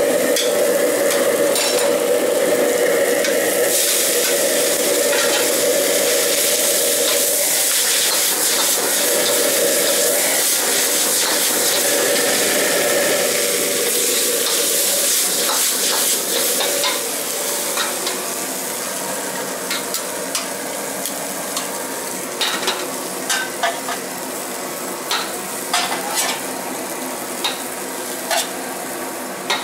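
Stir-frying in a wok: beef, vegetables and noodles sizzling while a metal ladle scrapes and tosses them. The sizzle is louder in the first half, and sharp metal knocks of the ladle come more often in the second half.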